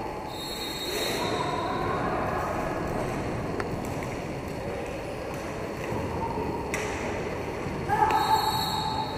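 Sound of roller hockey play: a steady din of skate wheels rolling on the rink floor, with a couple of sharp knocks of stick or ball. A brief high tone sounds about half a second in and again near the end, and a voice calls out near the end.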